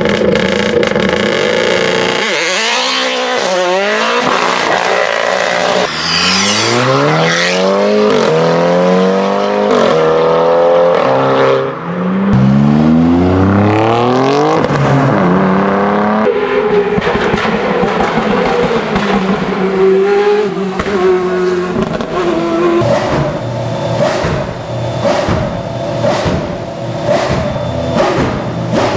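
Race car engines revving hard, the pitch climbing again and again through the gears, then running with rapid sharp exhaust pops and crackles in the second half.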